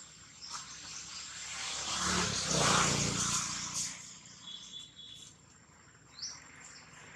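Forest ambience: birds chirping, with a quick rising chirp near the end, over a steady high insect drone. A broad rushing swell of noise builds and fades around the middle, like a passing vehicle or gust.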